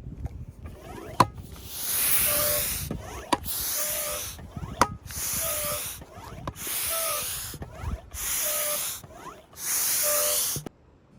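A hand air pump worked in six strokes, each a hissing rush of air about a second long ending in a short whistle, with clicks between strokes. It is inflating the air tent.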